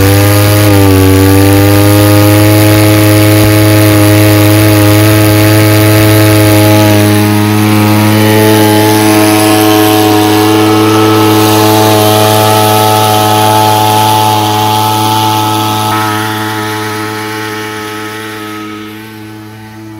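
Backpack power duster (動力散布機) with a small two-stroke engine running steadily at high throttle while it blows out granular fertilizer. The sound is loud, then fades gradually over the last several seconds.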